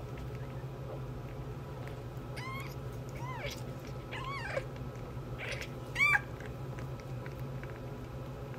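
Newborn kittens mewing: three thin, high mews about a second apart from about two seconds in, each rising then falling in pitch, then a louder, shorter mew about six seconds in.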